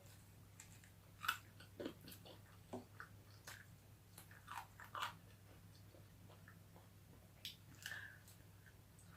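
A person biting and chewing cooked chicken bones, with scattered crunches, the strongest about a second in and around five seconds in. A faint steady low hum runs underneath.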